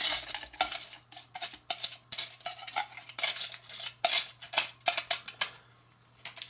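A metal fork scraping and clinking against a small foil-lined metal baking pan as food is scraped out, in a quick, irregular run of strokes that stops about a second before the end.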